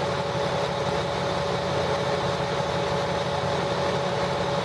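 A motor vehicle engine idling steadily: a low, even rumble with a constant tone above it and no revving.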